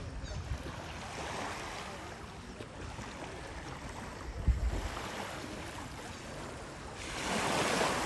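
Sea surf washing onto a beach: a swell of waves about a second in and a louder wave breaking near the end. A low thump about halfway through.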